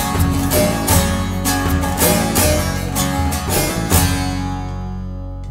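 Bağlama (saz) playing the closing instrumental phrase of a Turkish folk deyiş in quick plucked and strummed strokes, ending on a last note about four seconds in that rings and fades out.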